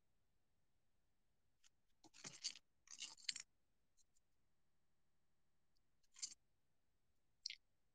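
Near silence broken by a few brief, faint scratching sounds: a cluster about two to three and a half seconds in, then single short scratches near six and seven and a half seconds.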